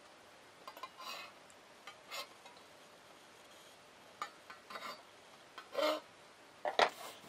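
Steel compass points scraping on the bottom of a stainless steel bowl while a circle is scribed on it. It comes as about half a dozen short, separate scrapes, and the last ones are the loudest.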